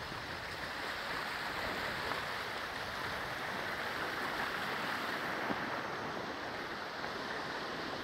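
Small river rushing over rocks in shallow rapids: a steady hiss of running water.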